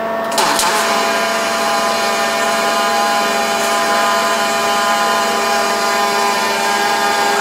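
Robotic arc welding: the arc strikes about half a second in, then runs as an even hiss over the steady hum of the welding cell's machinery.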